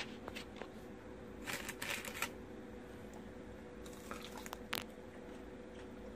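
Someone biting into and chewing a crispy air-fried chicken wing: a cluster of crunchy crackles about a second and a half in, then a couple of single ones later, over a faint steady hum.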